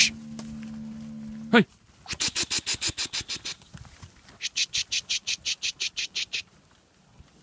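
A feeder steer mooing: one long, low moo held steady, ending in a sharp upward break about a second and a half in. After it come two runs of rapid high chirping ticks, about eight a second.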